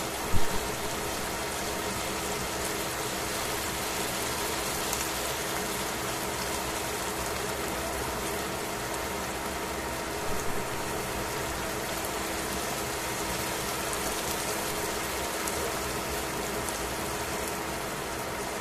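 Chicken pieces sizzling steadily in bubbling oil in a stainless steel frying pan. Two short knocks come through, about half a second in and again about ten seconds in.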